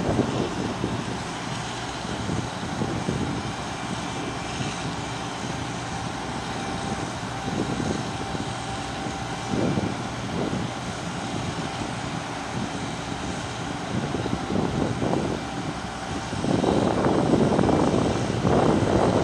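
A steady engine drone, with louder noisy swells near the end.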